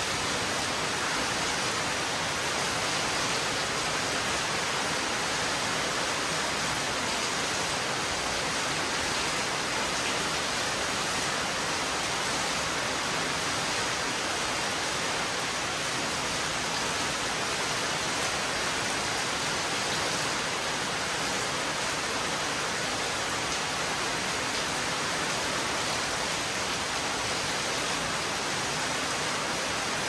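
Heavy rain falling, a steady dense hiss that holds even throughout, with no thunder.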